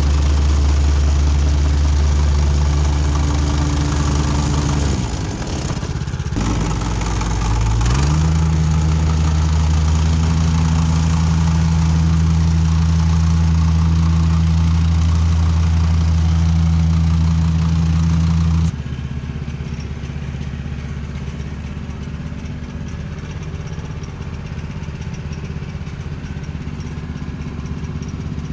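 Diesel engine of a compact construction machine running steadily. About five seconds in its speed sags, and it climbs back up a few seconds later. About two-thirds of the way through, the sound switches abruptly to a quieter engine note.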